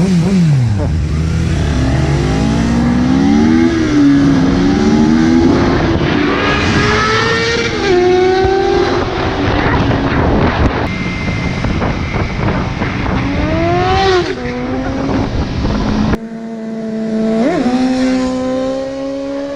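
A motor vehicle engine revving up and down again and again, its pitch rising and falling, then settling to a steadier run with one short blip of the throttle near the end.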